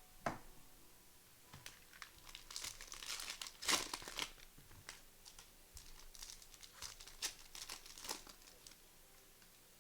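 Plastic trading-card pack wrappers crinkling and tearing as packs are ripped open and handled, with the loudest crackle about three and a half seconds in.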